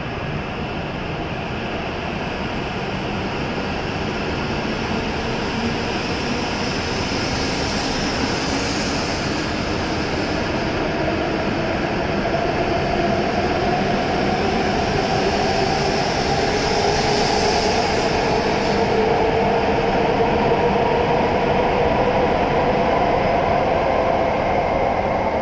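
E7 series Shinkansen train pulling out and gathering speed, a whine rising in pitch from its electric traction motors over the running rumble of the wheels. The sound grows steadily louder as the train speeds up.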